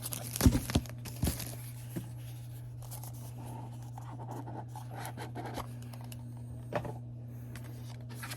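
A small cardboard box being opened and its packaging handled: scratching, scraping and paper rustling, with a few light knocks in the first two seconds and another near the end. A steady low hum runs underneath.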